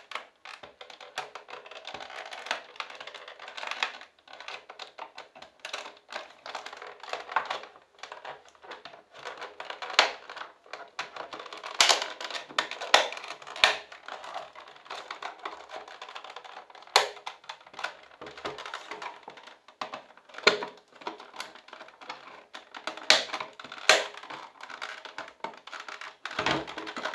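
Plastic housing of a Krups Dolce Gusto capsule coffee maker being pried apart with a screwdriver and metal pick. Irregular sharp clicks and snaps as the snap latches along the seam give way, with scraping and creaking of the plastic between them and a few louder snaps.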